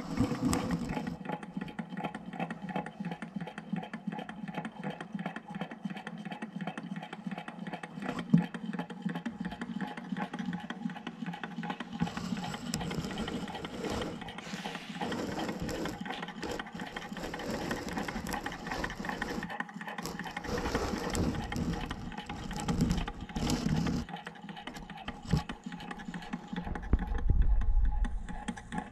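Low-temperature Stirling engine running, its flywheel crank and linkage making a steady, fast mechanical ticking. The sound grows louder and rougher for a stretch in the middle, and there is a low bump near the end.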